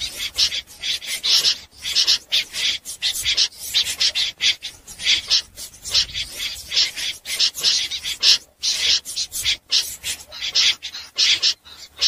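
Snipe giving harsh, rasping scaap calls, one after another in an irregular run of roughly two or three a second.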